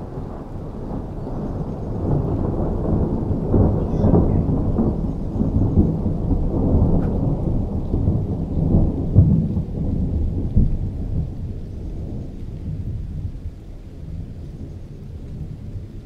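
Long rolling thunder from a thunderstorm: a deep rumble that builds a couple of seconds in, swells with several sharper claps through the middle, then dies away over the last few seconds.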